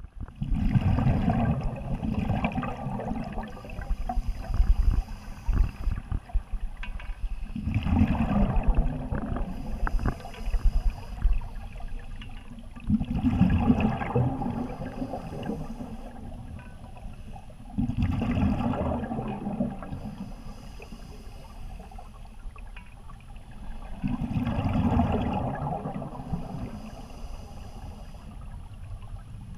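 A scuba diver breathing through an open-circuit regulator underwater: a rumbling burst of exhaust bubbles about every five to six seconds, five in all, each followed by a fainter, higher hiss of the regulator on the inhale.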